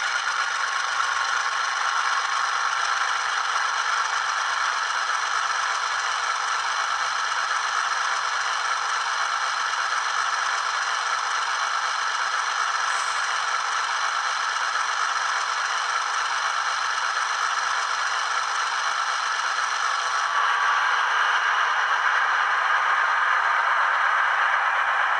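Model locomotive sound decoder playing a recorded diesel locomotive engine sound through a small speaker, a steady tinny hum with almost no bass. It steps up louder about twenty seconds in.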